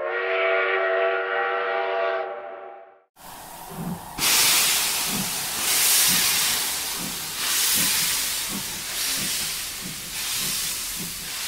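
Steam locomotive: a steam whistle sounds a steady chord of several notes for about two seconds and fades. After a short gap comes loud hissing steam with the engine's regular exhaust chuffs, a little under two a second.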